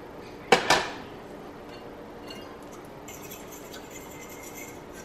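Two sharp knocks about half a second in, then melted butter sizzling and crackling in a griddle pan from about three seconds in.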